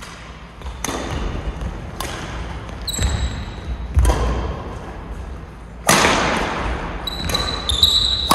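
Badminton rally: rackets striking the shuttlecock about once a second, with a few short sneaker squeaks on the court near the end.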